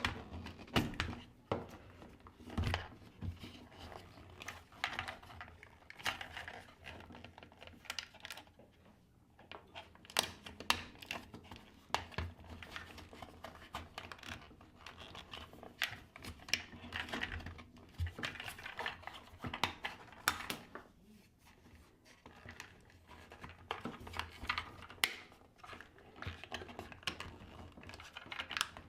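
Irregular small plastic clicks, taps and rustling as a front-loading washer's door latch, its wire connectors and its plastic hood are handled and pulled apart by hand.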